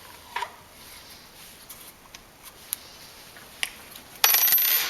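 Handling noises from a compact jigsaw as its bevel is locked: a few light clicks, then a loud metallic scrape lasting well under a second near the end.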